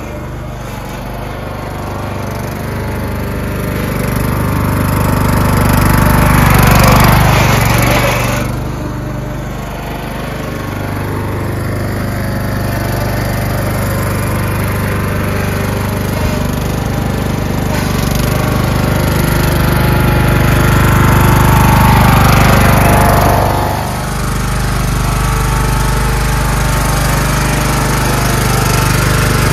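Craftsman LT1000 lawn tractor's rebuilt engine running steadily, getting louder twice, about six seconds in and again about twenty-two seconds in, and each time dropping back suddenly.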